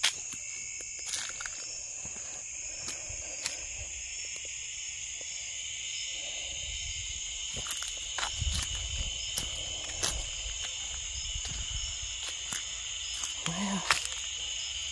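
Steady, high-pitched chorus of evening insects in the woods, with scattered crunches of footsteps on dry leaves and twigs.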